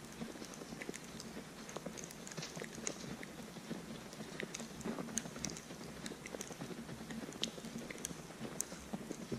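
Footsteps crunching through fresh snow, with scattered light ticks on top.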